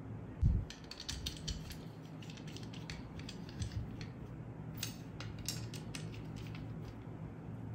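Small screwdriver driving screws into a fish-finder mount's plastic base, with irregular light metal clicks and scrapes of the screws and nuts being handled. A low thump about half a second in.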